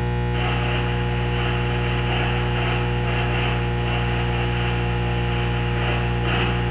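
Steady electrical hum with a hiss behind it, made of several fixed low tones.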